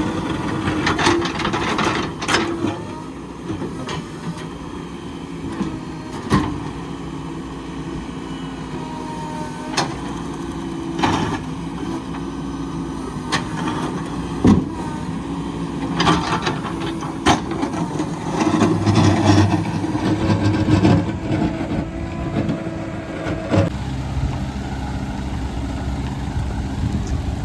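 Road-construction machinery engines running with a steady hum, overlaid by scattered sharp knocks and clanks.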